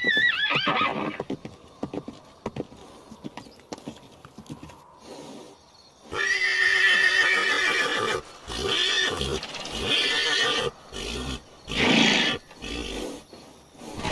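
A horse whinnies, ending about a second in, followed by a few seconds of hoofbeats. From about six seconds in, horses neigh loudly several times, one call after another with short breaks.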